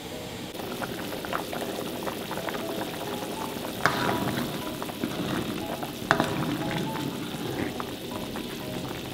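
Broth bubbling in a stainless steel wok while a wooden spoon stirs it, knocking against the pan a few times, most clearly about four and six seconds in.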